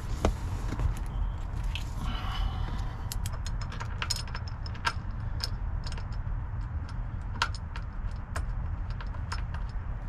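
Small metal parts clicking and clinking at irregular intervals as the shifter's mounting bolts and a wrench are handled at the shifter base, over a steady low hum.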